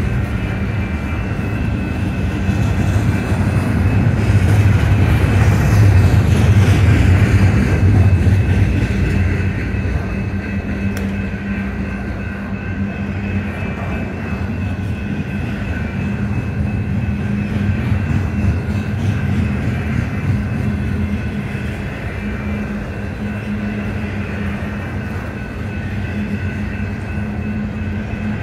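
Union Pacific double-stack container train rolling past: a steady rumble of well cars' wheels on the rails, loudest about five to eight seconds in.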